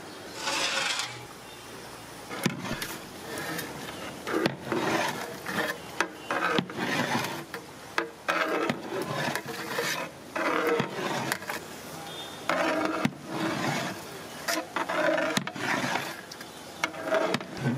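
A large ladle stirring biryani rice in a big cooking pot, with repeated rasping scrapes against the pot's side and bottom and an occasional sharp knock.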